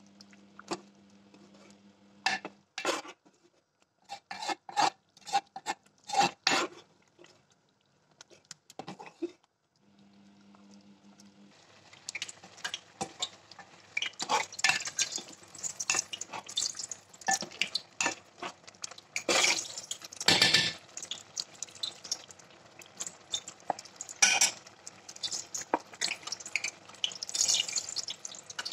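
Metal ladle and spoon stirring curry in an aluminium pot, clinking and scraping against the pot's sides and bottom. The clinks come in short spells for the first ten seconds, then run almost without a break.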